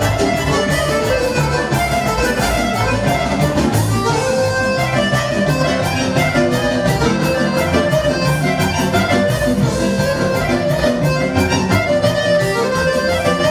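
Live folk band playing a lively tune at close range, led by accordion and trumpet over a steady fast beat.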